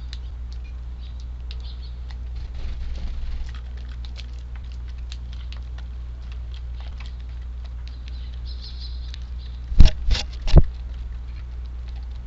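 Many small ticks and taps of tree sparrows pecking and hopping at a feeding spot, over a steady rumble of strong wind on the microphone. Three loud knocks come close together about ten seconds in.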